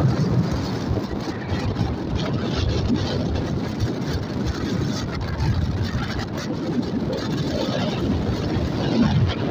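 Steady rumble of a moving road vehicle: engine and road noise with wind buffeting the microphone.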